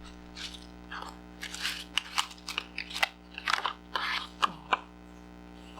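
Paper rustling and crinkling in a quick run of short, scratchy sounds as an envelope is picked up and handled. It dies away about a second before the end.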